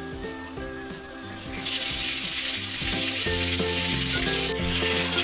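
Water gushing from a bath mixer tap into a bathtub, starting suddenly about a second and a half in; about a second before the end it turns softer and less hissy but keeps running. Light background music plays under it.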